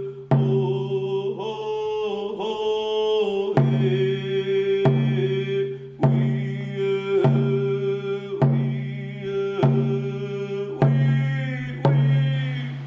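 Slow, steady drumbeat, about one stroke every 1.2 seconds, under a held chanting voice that shifts pitch now and then.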